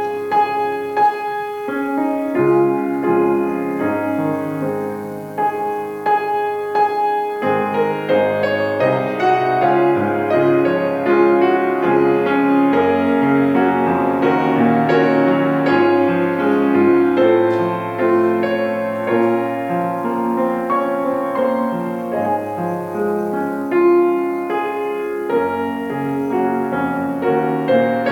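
Piano playing a continuous instrumental piece, with chords and moving melody notes throughout.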